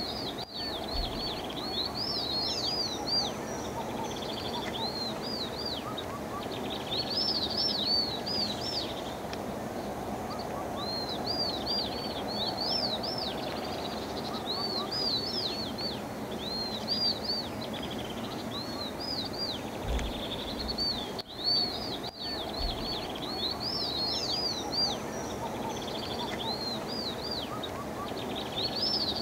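Birds singing in the pre-dawn chorus: phrases of quick, high, arching chirps, one after another every second or two, over steady background noise.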